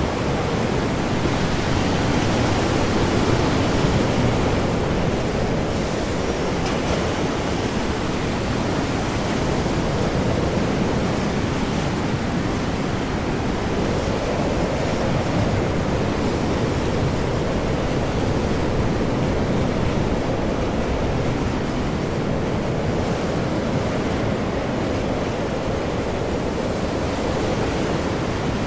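Stormy ocean: heavy waves churning under high wind, a steady dense rush that swells slightly a few seconds in.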